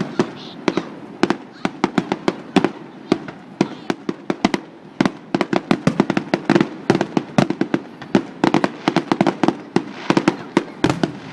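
Fireworks display: a rapid, unbroken barrage of sharp bangs and crackling pops, several a second.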